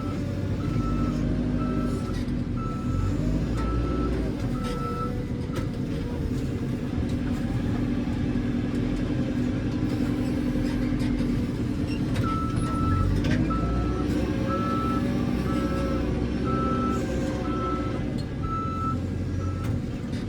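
JCB 3CX backhoe loader's diesel engine running, its pitch rising and falling, with the reversing alarm beeping steadily in two spells, the second starting about twelve seconds in. A few sharp knocks are heard.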